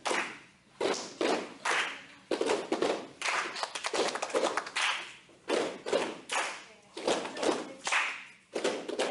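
An irregular series of sharp knocks and taps, roughly two a second, each ringing briefly.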